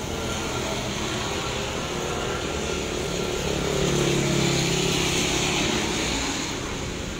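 Steady rain, with a motor vehicle passing on the wet road: its engine and tyre hiss swell to a peak about four seconds in, then fade.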